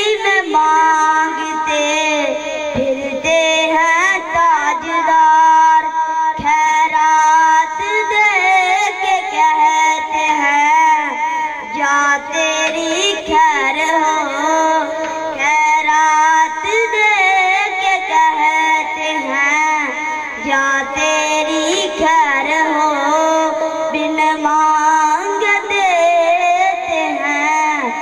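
A boy singing a devotional naat solo into a microphone, with long held notes and ornamented pitch bends, amplified over a PA.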